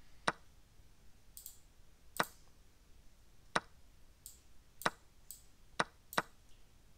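Sharp clicks from an online blitz chess game being played quickly on a computer: about six loud clicks at uneven intervals, with a few fainter, thinner ticks between them.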